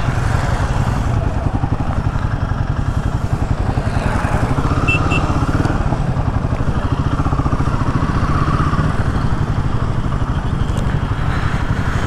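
Royal Enfield Himalayan 450's single-cylinder engine running steadily under way, its firing pulses even.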